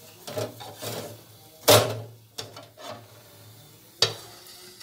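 Wooden spatula scraping and rubbing against a metal tawa as a stack of rotis is turned, with a sharp loud clank a little under halfway through and another knock near the end, over a low steady hum.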